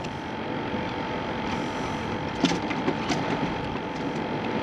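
Steady rushing wind and water noise, with a few light clicks as monofilament fishing line is handled and let out by hand.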